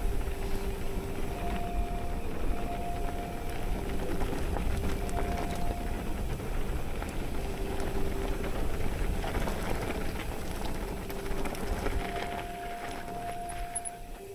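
Mountain bike (Nukeproof Mega) rolling over a gravel road: tyre crunch and rattle with wind rumbling on the camera microphone, steady throughout. A faint tone switches back and forth between two pitches over it.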